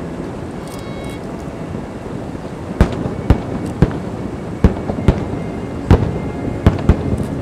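Fireworks going off: a steady low background noise, then from about three seconds in a quick run of about eight sharp bangs.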